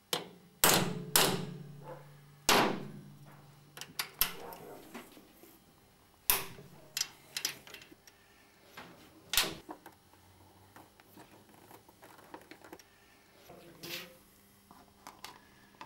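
Workshop handling sounds as a motorcycle's plastic tank side panel is unscrewed with an Allen wrench and lifted off: about six sharp clicks and knocks of metal tool, screws and panel, spread out, the first few ringing briefly.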